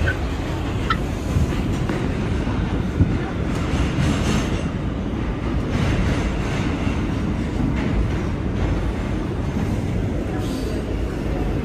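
New York City R211T subway car heard from inside, running along the track into a station with a steady rumble of wheels on rail and a few faint clicks.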